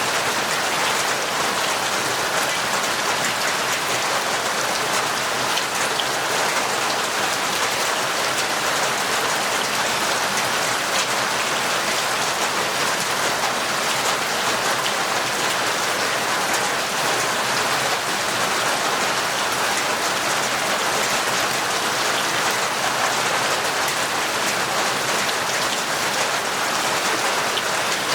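Heavy rain falling steadily: a dense, even patter of countless drops.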